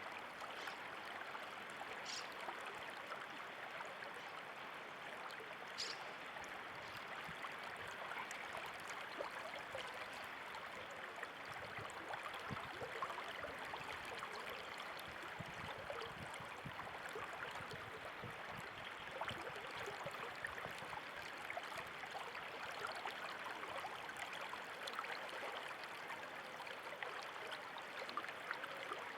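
Running water flowing steadily with an even, continuous rush, and two brief higher-pitched sounds about two and six seconds in.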